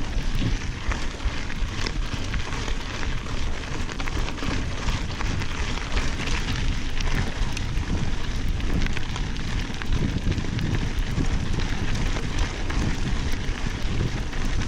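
Mountain bike tyres rolling over a gravel dirt road: a steady crackle of many small clicks over a low rumble, with the bike rattling.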